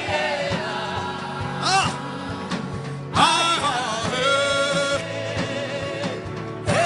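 Gospel worship singing: a voice holds long, wavering notes over a steady keyboard-and-bass accompaniment with a regular soft beat. This is a chant of prayer rather than a song for performance.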